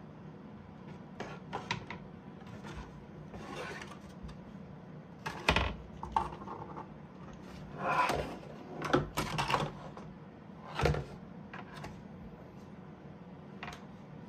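Hard plastic being handled: scattered clicks, knocks and rubs from a small toy-grade RC drift truck as it is turned over and its power switch is looked for, over a low steady hum. The loudest knocks come about five and a half and nine seconds in.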